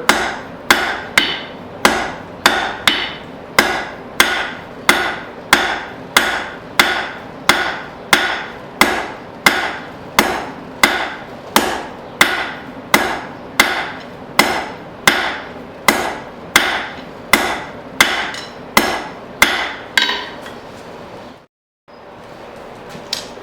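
Hammer striking a 1/2-inch square steel bar on an anvil in a steady rhythm, about one and a half blows a second, drawing out the start of a long taper. The blows stop about twenty seconds in, followed by a short break to silence.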